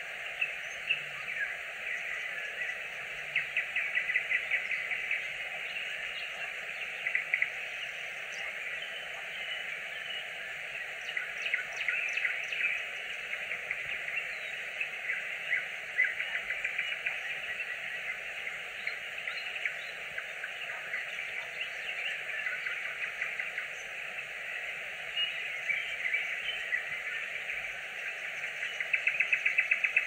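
Nightingale singing: repeated bursts of fast, rattling trills every few seconds, the loudest near the end, over a steady high chorus.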